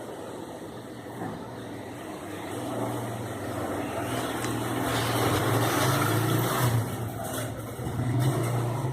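A vehicle engine running with a steady low hum, growing louder through the middle and easing off near the end.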